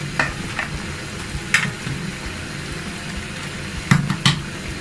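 Battered cauliflower florets sizzling steadily as they deep-fry in hot oil in a metal pot. A slotted metal spatula stirs them, clinking against the pot a few times, twice near the end.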